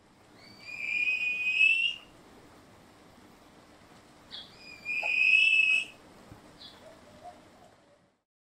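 Two high, whistled bird calls, each rising slightly and then held for about a second, with a couple of short chirps between and after them, played as the cassowary's call.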